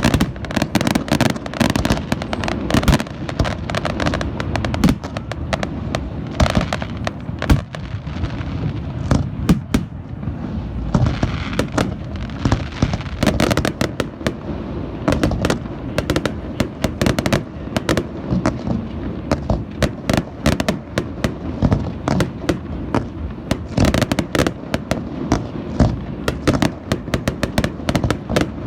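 Aerial fireworks display: a rapid, continuous barrage of shell bursts and booms, many a second, with a spell of hissing crackle about eleven seconds in.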